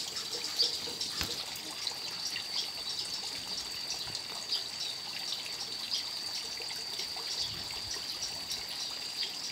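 Water trickling steadily from a pipe into a fish pond, under a steady high-pitched tone that pulses about every two-thirds of a second.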